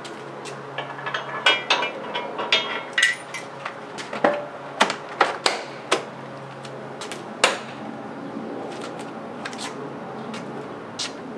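Metal clanks and clicks as a swing-out hitch bike rack is handled and a Ford E-350 van's rear doors are unlatched and swung open: a busy run of knocks over the first six seconds, then a single sharp click and another near the end.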